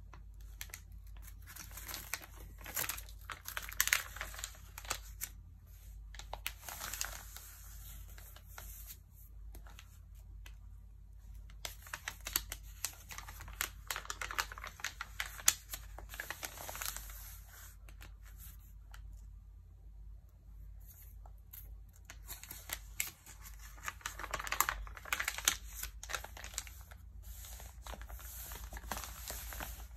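Magazine pages handled by hand, turned and rubbed flat, crinkling and rustling with many crisp clicks. The paper noise comes in about four bouts with quieter gaps between, over a steady low hum.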